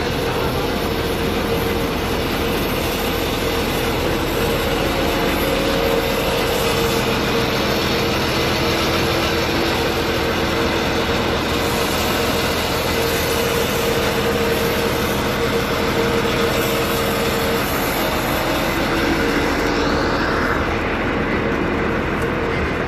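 Truck-mounted water well drilling rig running steadily under test: a constant heavy engine drone with a steady whine over it.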